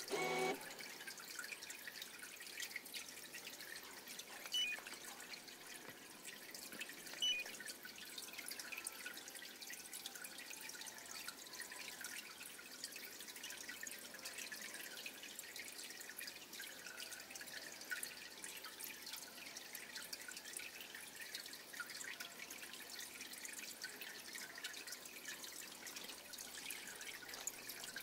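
Small harbour waves lapping against a pier, a faint steady patter of dripping and trickling water. Two short high peeps stand out briefly a few seconds in.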